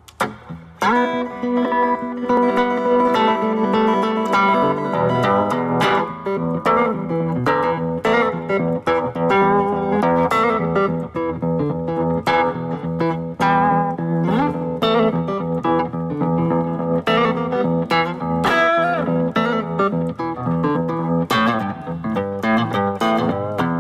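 Guitar music: quick plucked notes over sustained lower notes, played steadily throughout.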